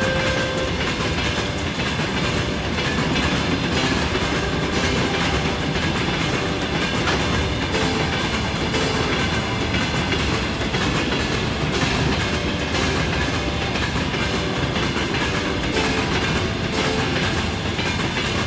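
A train running along the track, its sound a steady, dense noise.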